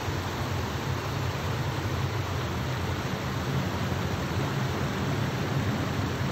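Steady rush of a mountain waterfall and its rocky stream: an even noise of falling and running water without breaks.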